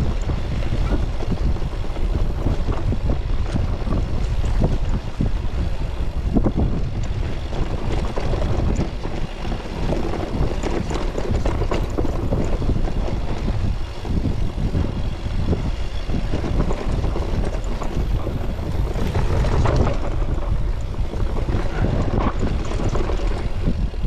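Wind buffeting the microphone of a camera on a moving electric mountain bike, a heavy continuous rumble, with irregular rattles and knocks from the bike riding over rough ground.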